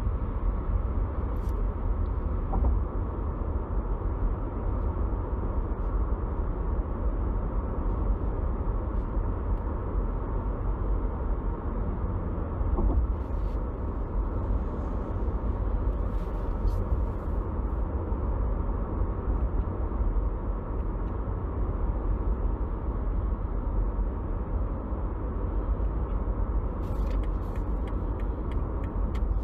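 Steady low rumble inside a BMW G20 318d diesel car with the engine running, mixed with road noise, plus a few faint ticks and rattles now and then.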